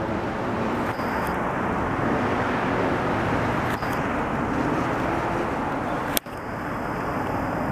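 Airliner on landing approach overhead, its jet engines giving a steady, even noise, broken by a brief sudden dropout about six seconds in.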